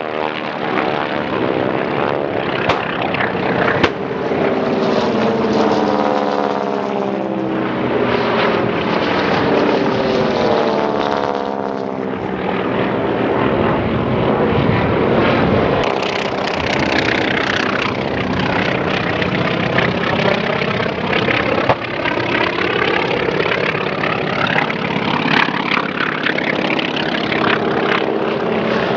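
Propeller-driven warbird replicas with radial piston engines flying low passes. Several engines are heard at once, their pitch sliding down as each plane goes by and crossing rising and falling tones as others approach and leave.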